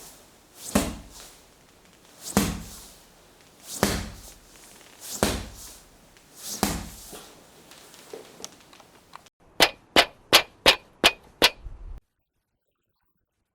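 Foley recording: five dull, separate thuds about a second and a half apart, then after a pause a quick run of seven sharp clicks, about three a second, that stops suddenly before silence.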